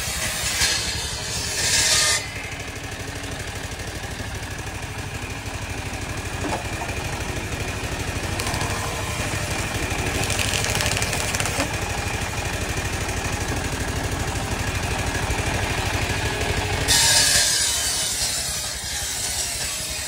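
Engine-driven sawmill running steadily while the saw cuts through wood. The cutting noise gets louder and higher three times: near the start, about ten seconds in, and near the end.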